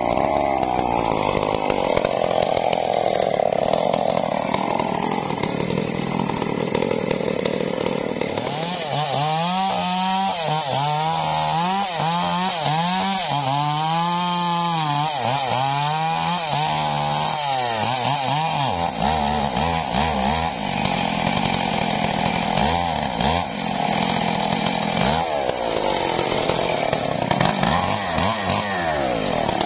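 Stihl MS 381 two-stroke chainsaw running at full throttle while cutting through a felled waru log. The engine pitch rises and falls in repeated swings every second or so through the middle of the cut, as the chain loads up and clears in the wood.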